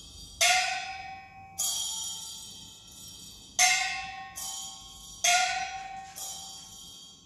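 Music of struck, bell-like percussion: about six strikes, each ringing and fading over about a second, alternating a lower ringing note with a bright high chime, the loudest a little past the middle.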